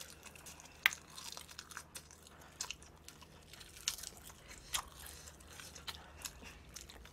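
Close-miked chewing of a mouthful of spicy glazed fried chicken: irregular wet mouth clicks and smacks, the sharpest about a second in and again around four to five seconds.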